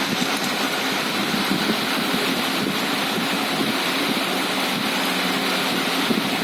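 Steady mechanical hum of machinery running in the background, even in level throughout.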